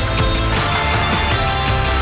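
Outro music with a steady, driving drum beat.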